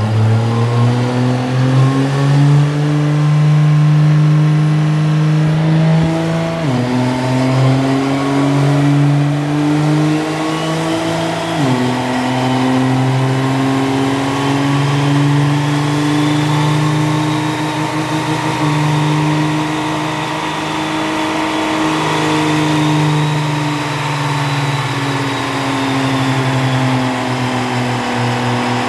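A heavily modified 6.7-litre diesel pickup engine running hard under load on a chassis dyno. Its pitch climbs slowly and drops sharply twice, as at gear upshifts, then eases off near the end, with a high whine rising over it.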